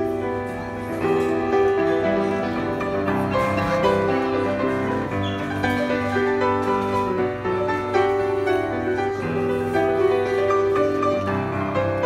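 Yamaha grand piano played live: a melody over chords, with notes held and ringing on.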